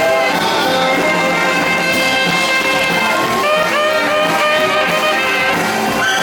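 Live band playing 1950s-style music, with brass instruments prominent.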